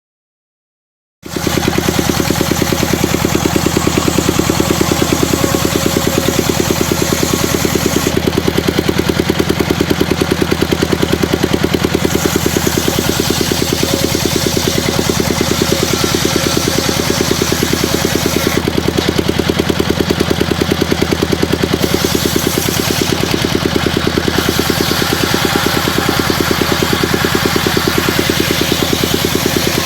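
Engine of a homemade circular-saw sawmill rig running steadily with a fast, even beat. It cuts in abruptly about a second in.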